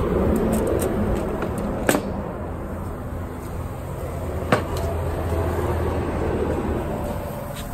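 Wind and handling noise rumbling on a phone microphone outdoors, with two sharp clicks about two and a half seconds apart.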